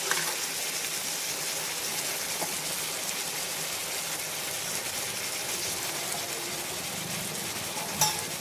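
Soya chunks and spice paste frying in a pan with a steady sizzle. There is a light click at the start and a sharper one near the end.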